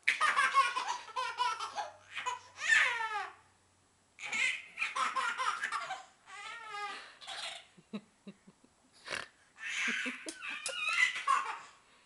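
Baby belly-laughing in repeated bursts, with squealing, falling and quavering laughs and short breaks between them.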